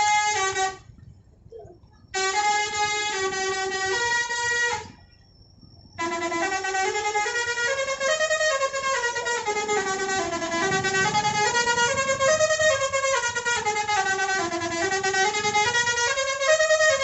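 Basuri telolet multi-tone bus horn playing melodies: a short burst ending just under a second in, a phrase of stepping notes from about two seconds in, then from about six seconds a long unbroken tune of notes rising and falling.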